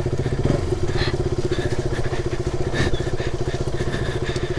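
KTM RC200's single-cylinder motorcycle engine running steadily, with a couple of short light knocks about a second in and near three seconds in.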